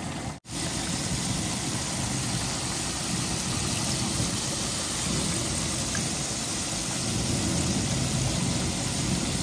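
Ribs deep-frying in a pan of hot oil over a burner: a steady bubbling sizzle over a low, even roar. The sound cuts out for an instant just after the start.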